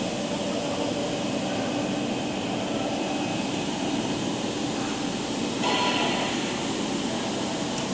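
Fruit and vegetable washing machine running: a steady mechanical noise with a low hum throughout. About six seconds in there is a brief, louder, higher-pitched sound.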